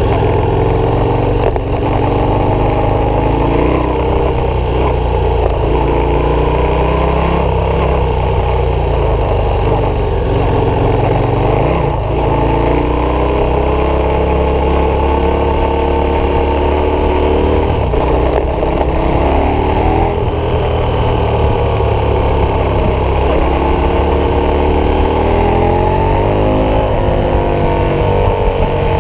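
KTM 1190 Adventure's V-twin engine, fitted with an aftermarket Wings exhaust, heard from onboard while riding. The engine note climbs and drops in pitch several times as the bike accelerates and shifts, with a long climb near the end.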